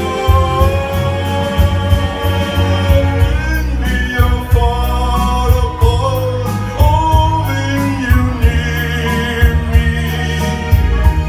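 A man singing into a microphone over amplified backing music with a steady beat.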